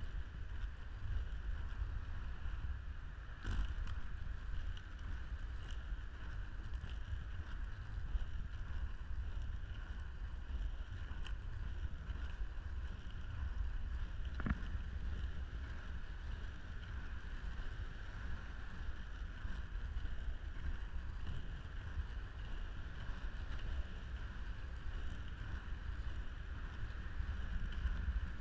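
Inline skate wheels rolling over a paved path, a steady rumble and whir with wind on the microphone. Two sharp clicks break through, one about three seconds in and one about halfway.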